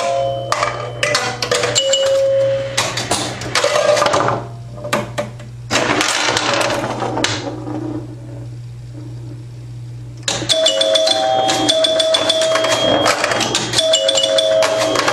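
1974 Bally Champ electromechanical pinball machine in play: rapid clacking of its solenoids, relays and stepper units, with scoring chimes ringing short bell tones over a low electrical hum. The hum stops about ten seconds in, and a dense run of clacks and chime strikes follows to the end.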